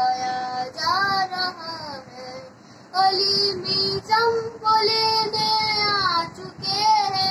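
A boy singing solo, holding long notes that bend and slide in pitch, with a short pause about two seconds in.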